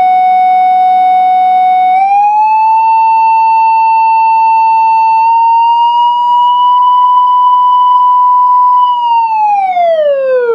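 Audio test tone from an HP 652A test oscillator played through a small amplified speaker, its frequency swept by hand. A steady tone that steps up about two seconds in, climbs slowly to around 1 kHz and holds, then glides back down near the end.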